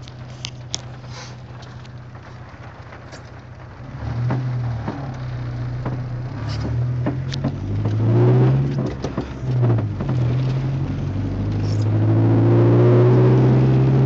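Chevrolet Cavalier running: a steady low engine hum, then from about four seconds in the engine note rises and falls several times as the car gets under way. Short sharp creaks sound throughout: the creaking noise the car has developed.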